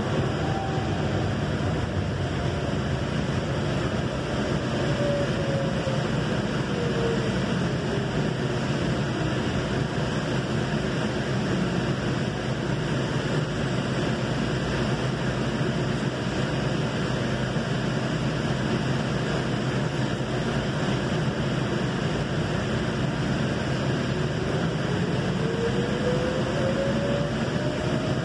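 Valley Metro light rail train running, heard from inside the passenger car: a steady rumble and hum, with a whine that falls in pitch over the first dozen seconds as the train slows, then rises again near the end as it picks up speed.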